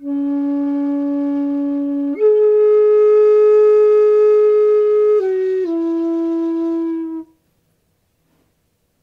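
Shakuhachi, an end-blown bamboo flute, playing a slow phrase of long held notes: a low note for about two seconds, a leap up to a higher note held about three seconds, then two steps down to a last note that stops about seven seconds in.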